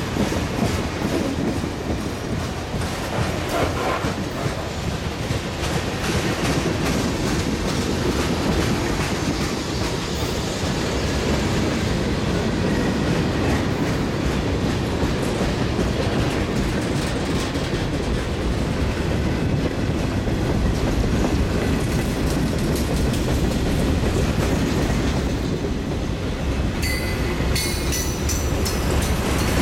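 A freight train's cars rolling past at close range: a steady rumble of steel wheels on the rails as flatcars, boxcars, a tank car and covered hoppers go by.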